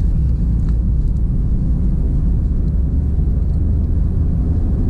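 Steady low rumble of a smart car on the move, with road and engine noise heard from inside the small cabin.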